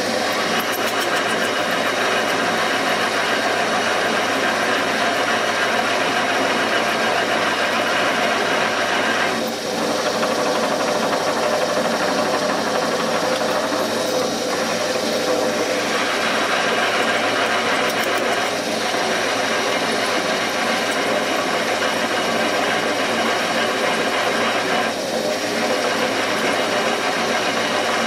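Seat and guide machine's spindle running steadily as it drills out a broken intake manifold bolt in a cast-iron Ford 302 cylinder head, the bit cutting a soft bolt. The sound eases off briefly a few times.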